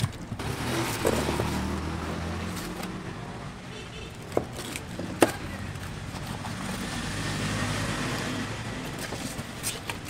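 A motor vehicle's engine running past, its sound swelling and fading twice, with two sharp knocks of a knife on a wooden cutting board near the middle.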